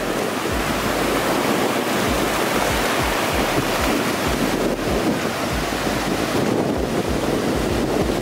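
Ocean surf washing steadily, with wind buffeting the microphone in irregular low gusts.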